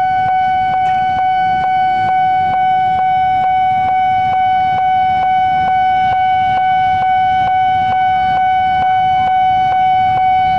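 Railway level-crossing warning alarm sounding continuously: one steady high tone with a regular click about twice a second, the signal that a train is approaching and the crossing is closed.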